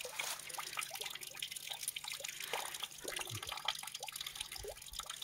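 Water trickling and dripping from the spout of a stone spring fountain: small drops land in quick, irregular succession over a faint steady splash.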